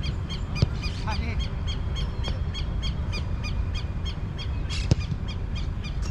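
A bird calling a rapid run of short, repeated honking notes, about four a second, which stops after about four and a half seconds. Two sharp thuds of a football being struck or caught come under a second in and near five seconds, over a steady low rumble.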